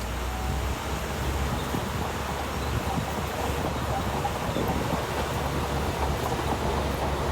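A bulldozer's diesel engine running steadily: a continuous low rumble with noisy clatter over it.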